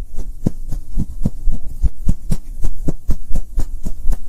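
Logo intro sound effect: a fast run of low thuds, about four a second and slightly uneven, like a heartbeat, over a steady low hum.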